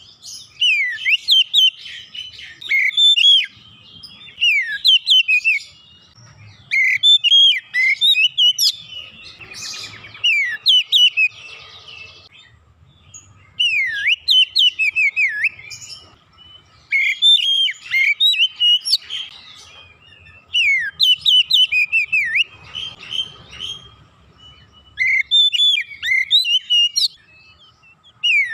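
Oriental magpie-robin singing in full song: repeated loud bouts of rapid, varied whistled notes and trills, each a second or two long, with short pauses between them.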